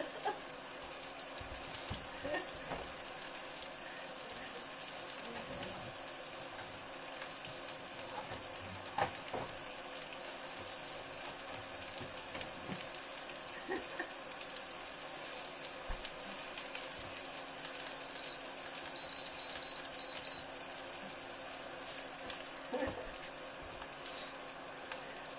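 Food sizzling in a frying pan, a steady hiss, with a few light knocks and clicks of kitchen handling. A few faint short high beeps come about two-thirds of the way through.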